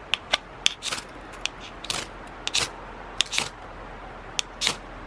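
About a dozen irregular sharp clicks and short scratchy strikes from an attempt to light a Coleman 502 camp stove, with no flame catching yet; the stove may not have been pumped up first.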